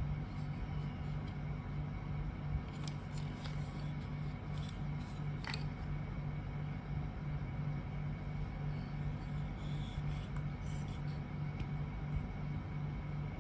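Small rechargeable portable fan running, its motor giving a steady, slightly pulsing hum with a faint whine. Light clicks and rubbing from the plastic fan being handled come in the first half and again around ten seconds in.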